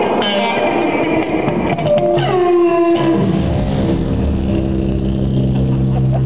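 Improvised experimental music on amplified electric guitar: pitched tones slide downward about two seconds in, then settle into a steady low drone.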